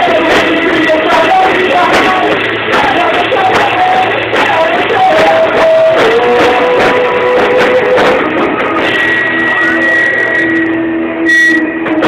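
A band playing rock music loudly, with a melody line that slides between long held notes. About nine seconds in, a higher sustained tone joins.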